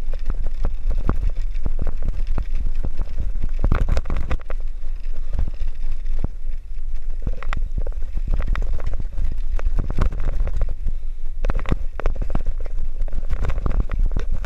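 Wind buffeting the microphone of a camera riding on a moving bicycle, a constant heavy rumble, with frequent irregular clicks and rattles from the bicycle as it rolls over rough, cracked concrete.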